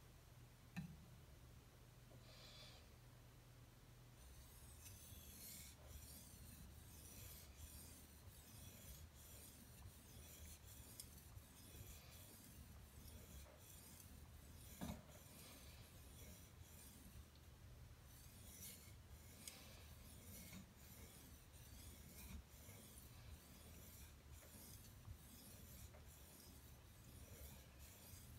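ESEE-3 knife blade being polished on a wet Suehiro Debado waterstone: faint, even, back-and-forth scraping strokes of steel on stone, starting about four seconds in. A single light knock halfway through.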